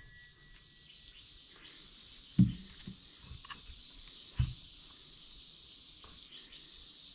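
Metal ring of an air compressor's valve plate fading after a tap, then two dull knocks about two seconds apart and a few small metal clicks as the plate is worked loose and lifted off the cylinder head. A faint steady high hiss sits underneath.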